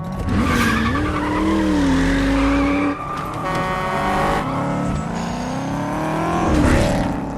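Car engine revving hard under acceleration, with tires squealing. The engine note climbs and holds, changes abruptly about three seconds in, then climbs again and falls away near the end.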